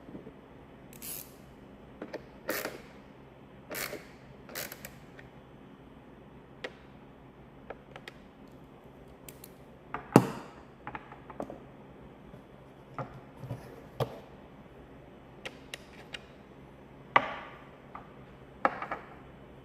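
Plastic instrument-cluster housing and bezel parts being handled and fitted together by hand: scattered clicks, taps and short scrapes, with the sharpest knocks about ten seconds in and again near the end.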